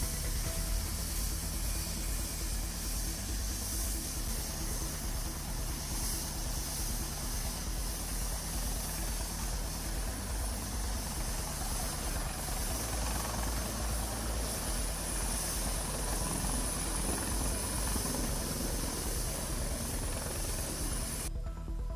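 Military helicopter running, a steady rotor and turbine noise with a heavy low rumble.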